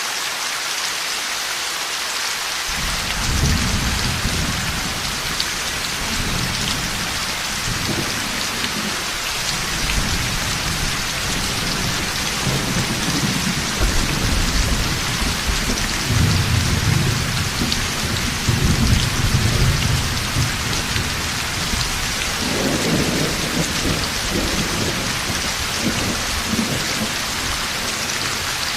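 Heavy rain falling steadily. About three seconds in, thunder starts rumbling low and rolls on in several long swells for the rest of the time.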